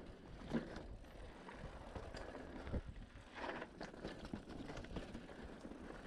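Cannondale Trail SL4 mountain bike rolling downhill on a dirt forest trail. Tyre noise runs continuously, with irregular knocks and rattles from the bike as it goes over the ground.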